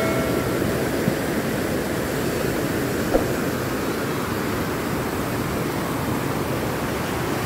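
Rough surf breaking and washing up a muddy beach: a steady rushing of waves.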